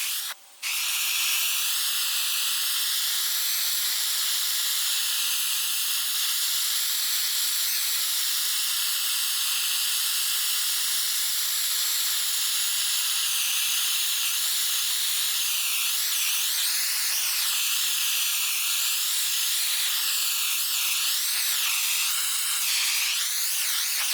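Gas torch flame hissing steadily, as used to scorch a wooden axe handle, with slowly wavering tone and a brief gap about half a second in.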